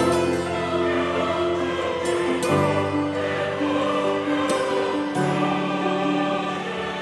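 Slow choral music: sustained sung chords that change about every two and a half seconds.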